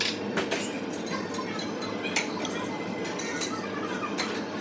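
Steady restaurant background din with several sharp clinks of dishes and cutlery scattered through it.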